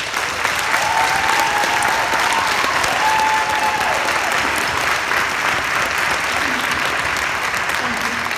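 Audience applauding loudly and steadily after a line in a speech.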